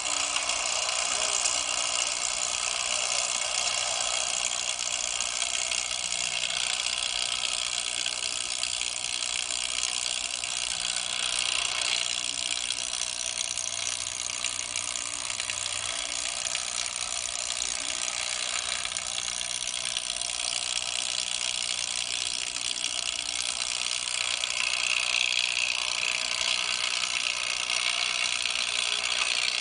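Sawmill machinery running, a steady, dense mechanical noise with no let-up.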